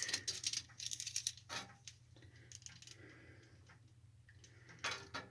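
Hand cutting tool trimming the welding gun's wire liner: a quick run of sharp clicks and snips in the first second and a half, then a few more near the end.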